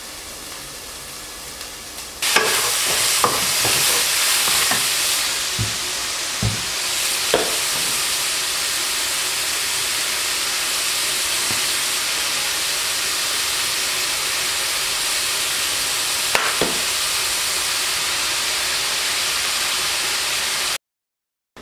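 Beef pieces sizzling as they fry in a stainless steel pan, the sizzle jumping much louder about two seconds in. A few light knocks of a utensil or bottle against the pan sound through it, and the sizzle cuts off abruptly just before the end.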